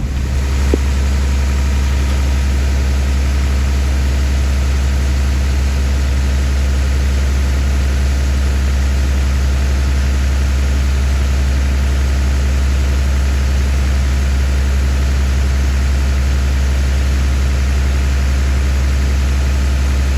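Heavy farm vehicle's diesel engine running steadily, a strong unchanging low drone.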